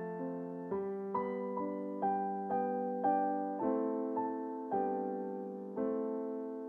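Background piano music: a slow, gentle melody of single struck notes about two a second, each ringing and fading, with a last note held and dying away near the end.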